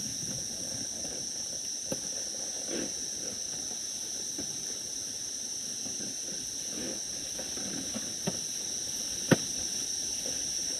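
Steady high-pitched drone of insects in woodland, with a few faint murmurs and a sharp click about nine seconds in.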